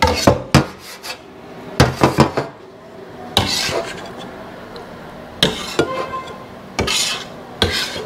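Chef's knife tapping and scraping on a wooden cutting board, gathering chopped salmon into a bowl: a quick cluster of sharp knocks in the first couple of seconds, then four rasping scrapes of the blade in the second half.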